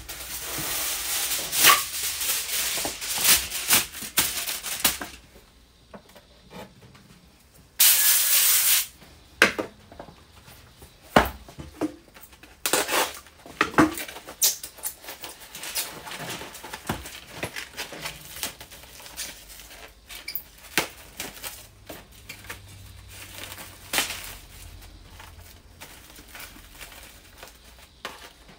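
Aluminium foil crinkling and rustling as a sheet is pulled out and spread over a tray, with a loud burst about a second long around eight seconds in. After that come scattered rustles, taps and clicks of handling.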